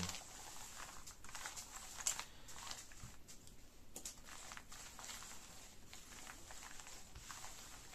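Tarot cards being slid and swirled face down across a cloth-covered table: a faint, soft rustling with a few light clicks.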